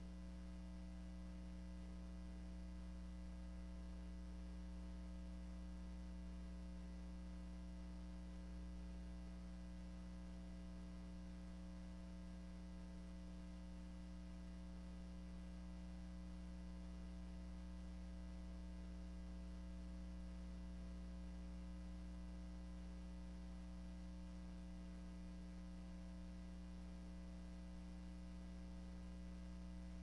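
Steady low electrical mains hum with its buzzy overtones, unchanging throughout, with nothing else heard.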